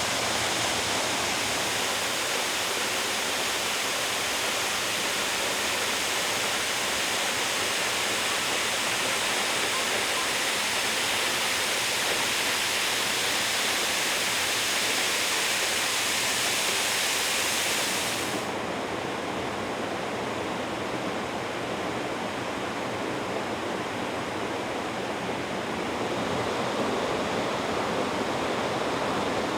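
Steady rushing roar of a tall plunge waterfall, Onogawa Fudo Falls with a drop of over 20 m. About two-thirds through the sound abruptly loses its high hiss and turns duller and slightly quieter, then grows fuller again near the end.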